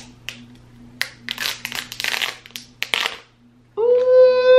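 Paper seal strip torn off an iPhone box in several rough ripping strokes. Near the end a loud, steady horn-like tone comes in.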